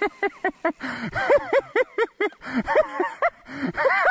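Hard, breathless laughter: a rapid run of high-pitched 'ha' bursts, several a second, that rises and falls without any words.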